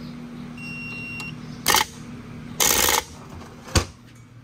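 Boat engine starter motor bench-tested off a jump starter pack, its solenoid just cleaned: a short beep from the pack, then two brief bursts of the starter spinning, about two and three seconds in, the second one longer, and a sharp click near the end.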